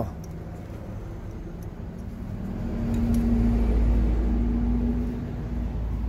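A low vehicle-engine rumble with a steady hum. It swells to its loudest around the middle and then eases off.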